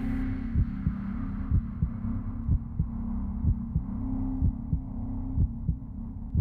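Heartbeat: pairs of low thumps about once a second over a steady low drone.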